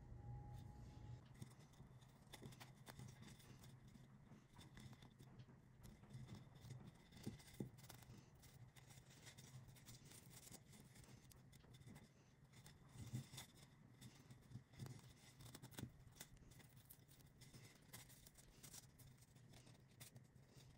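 Faint handling sounds of paper yarn being crocheted: a crochet hook pulling stiff paper yarn through stitches and loops being drawn over a cardboard tube. They come as soft, scattered clicks and rustles over a low steady hum.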